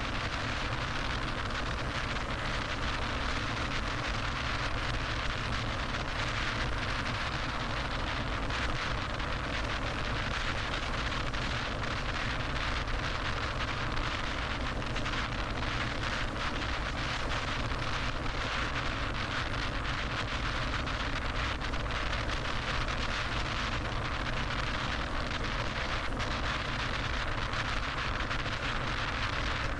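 Steady road and wind noise of a car cruising on a freeway, an even rush with no changes.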